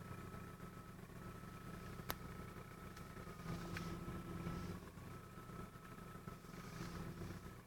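A car's steering whistling: a thin, high, steady whistle that comes and goes over the engine's idle, the steering whistle/howl the owner is recording as a fault. A sharp click about two seconds in.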